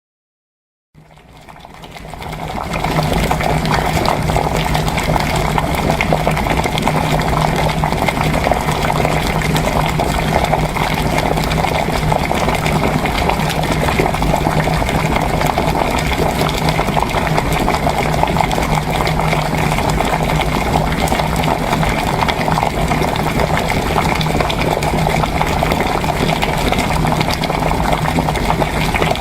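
Water at a rolling boil, bubbling steadily, mixed with typing on an HHKB keyboard's Topre electrostatic-capacitive switches. The sound fades in over the first couple of seconds and then holds even, with a low steady hum under it.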